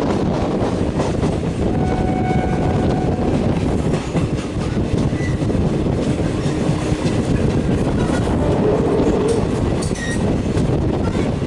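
Express train running through on the track: a steady rumble of coaches with wheels clattering over the rail joints.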